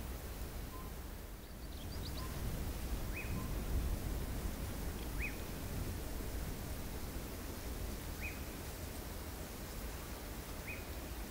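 Cheetah giving short, high, bird-like chirps about every two to three seconds, the call a mother uses to keep in contact with her cubs, over a steady low background rumble.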